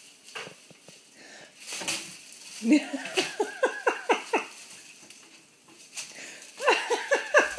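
A person laughing: a run of about eight quick 'ha' bursts starting about three seconds in, then a shorter run of laughter near the end.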